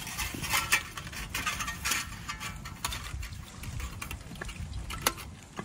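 Thin titanium panels of a folding bush stove clinking and clicking as they are handled and slotted together, a run of light metallic clicks with a few sharper ones.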